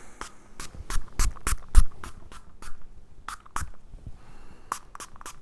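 Guerlain perfume bottle's atomizer being sprayed in a run of short spritzes: about eight in quick succession, then a few more after a pause.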